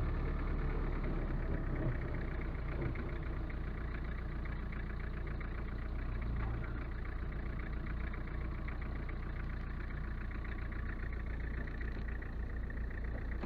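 Car engine running steadily: a low, even drone with a fast, regular pulse.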